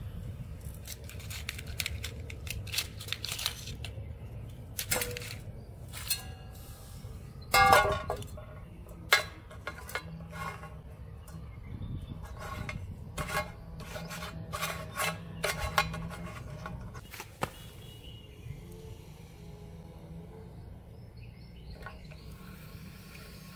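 Plastic toy airplanes and gear being handled and set down on a brick: a run of light clicks and knocks, with one louder ringing clink about eight seconds in, over a low steady rumble. The clicking dies away in the last several seconds.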